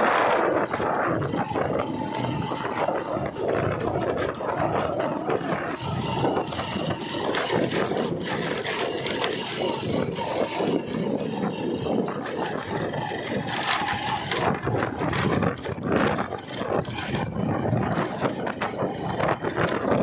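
A vehicle travelling over a rough dirt road, heard from on board: engine running under constant rattling, scraping and small knocks.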